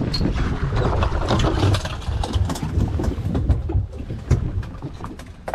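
Small fishing boat at sea: wind buffeting the microphone over the sound of the boat, with many short clicks and knocks scattered through.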